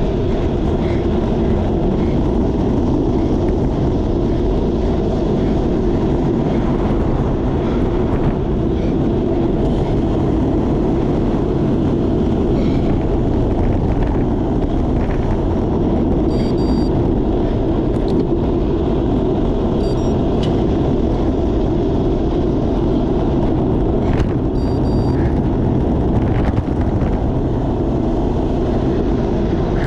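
Wind rushing over the microphone of a bicycle-mounted camera while riding at about 20 mph: a loud, steady low rumble. A brief high chirp sounds twice, about halfway through and again later.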